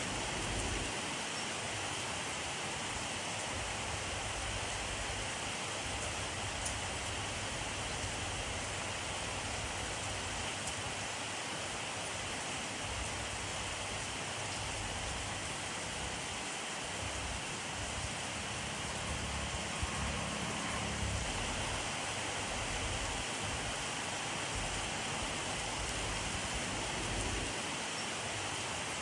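Steady rainfall: an even, unbroken hiss of rain, with a brief low rumble about two-thirds of the way through.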